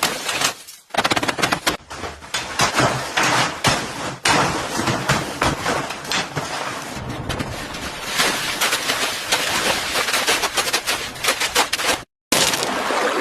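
Rapid clattering, scraping and knocking from tools working an object under restoration. The sound comes in several short clips with abrupt cuts between them.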